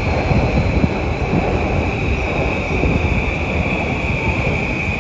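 Electric commuter train moving along the platform, a steady rumble with a constant high-pitched wheel squeal.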